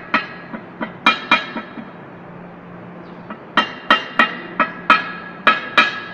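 Hammer blows on metal at a truck transmission's aluminium bell housing: sharp, ringing metallic strikes, about three a second, in two runs with a pause of a second and a half between them.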